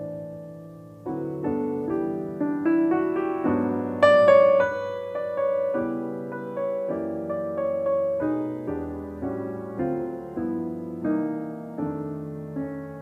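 Jazz piano playing a slow ballad: unhurried chords and single-note lines, each struck note fading away, with a fuller, brighter chord about four seconds in.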